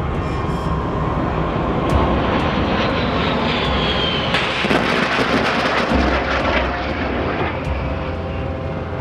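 A-10 jet aircraft passing, its twin turbofan engines making a steady rush with a high whine that falls in pitch about three to four seconds in, and the noise swells loudest about five seconds in.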